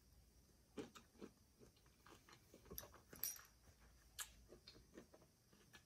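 Faint wet mouth sounds of someone chewing cooked cocktail shrimp with closed lips: scattered soft smacks and clicks.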